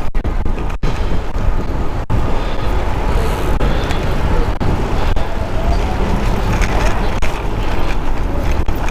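Wind rushing over a helmet-mounted GoPro's microphone on a moving road bike, a steady heavy rumble with three brief dropouts in the first two seconds.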